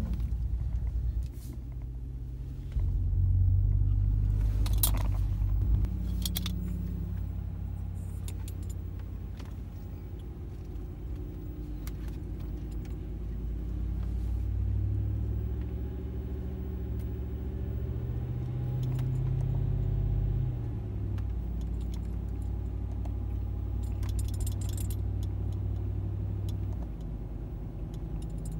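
The 5.7-litre Hemi V8 of a 2017 Ram 1500 fitted with Carven Competitor mufflers, heard from inside the cabin while driving: a fairly quiet, low exhaust rumble that swells as the truck pulls away about three seconds in and again under acceleration around the middle. Light jingling clicks sound over it now and then.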